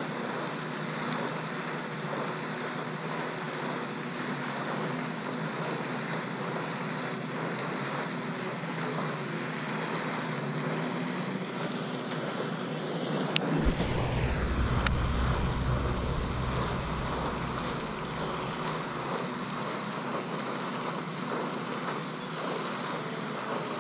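Outdoor ambience of wind on the microphone, a steady hiss, with a low buffeting gust swelling about halfway through and lasting a few seconds. Two faint clicks sound as the gust begins.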